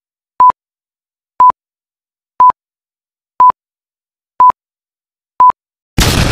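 Six short electronic beeps on one steady high tone, evenly spaced one a second like a countdown. Near the end a sudden loud noisy whoosh breaks in and begins to fade.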